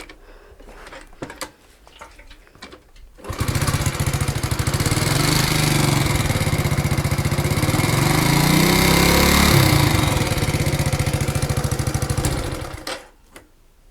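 Alpha moped's small single-cylinder four-stroke engine starting about three seconds in after a few faint clicks, running with a fast, even knocking pulse, revving up and back down, then shutting off near the end. The knock is one the owner cannot trace: the piston kit is new, and the valves, magneto and clutch have been checked.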